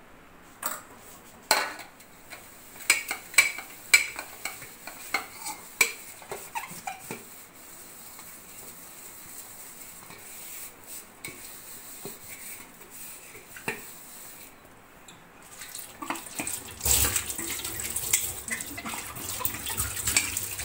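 A steel ladle and a stainless steel plate clink and knock several times, followed by the rasp of a scouring pad scrubbing the plate. About seventeen seconds in, tap water starts running steadily as the plate is rinsed under it.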